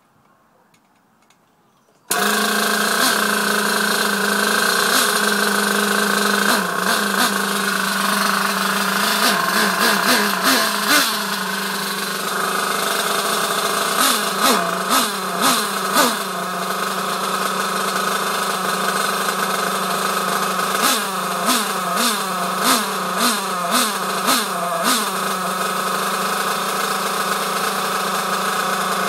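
Nitro RC car engine with a home-made exhaust catching suddenly about two seconds in, then running steadily at idle and revved in repeated short throttle blips.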